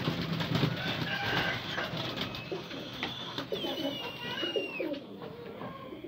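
Birds calling in a coop: low, short cooing calls of the kind pigeons make, and a few high, falling chirps about halfway through, after a noisier first couple of seconds.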